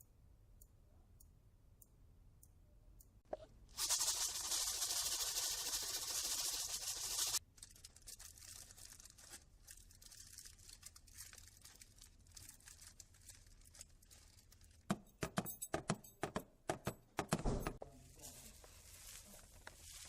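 Foley sound effects: a loud, even noise starting about four seconds in and cutting off sharply after about three and a half seconds, then later a rapid run of sharp clicks and crunches lasting about two seconds.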